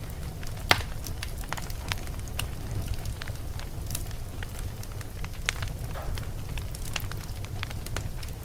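Fire burning: a steady low rumble with irregular sharp crackles and pops, the loudest pop about a second in.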